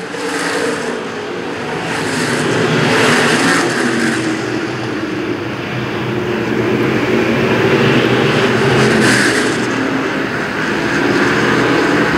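A field of dirt-track stock cars racing, engines running hard at speed. The sound swells twice as the pack comes round, about three and eight seconds in.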